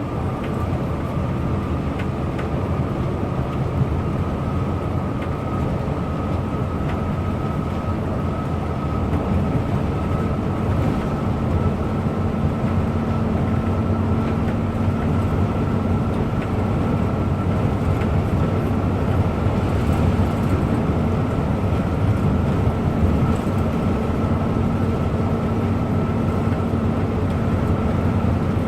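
A bus cruising steadily, its engine and road noise a continuous low drone, with a thin high whine that creeps slowly upward in pitch.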